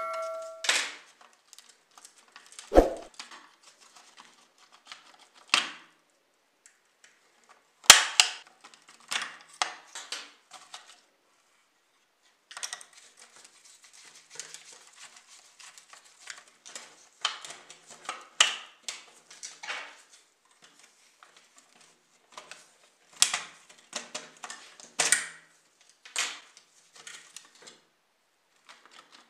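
A screwdriver and fingers working on a small scale model car as it is taken apart: scattered clicks, taps and scrapes on its plastic and metal parts, with short pauses between.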